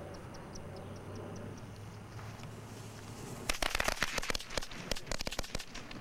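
A rapid, irregular string of sharp cracks and pops, like a string of firecrackers going off. It starts a little past halfway and lasts about two and a half seconds.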